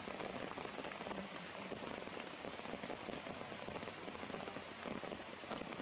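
Steady rain falling on wet rock and leaves: a dense, even spatter of small drop impacts.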